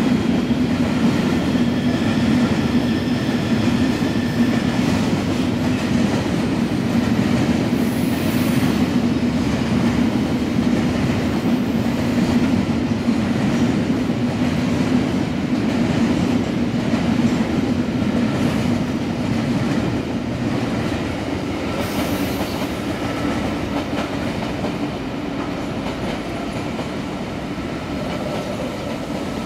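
Loaded grain hopper wagons of a long freight train rolling steadily past: a constant rumble and clatter of wheels on the rails, with faint wheel squeal. An electric V-set passenger train pulls in alongside in the later part.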